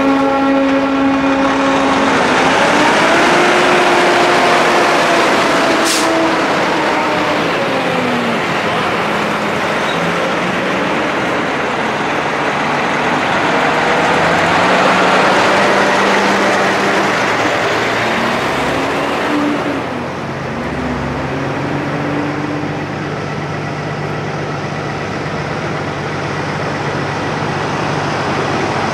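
A convoy of American semi trucks (Volvo VNL, Freightliner Coronado, Kenworth W900) driving past one after another, their diesel engines rising and falling in pitch as they pull through. A truck air horn that was already sounding cuts off about a second in, and there is a short sharp hiss about six seconds in.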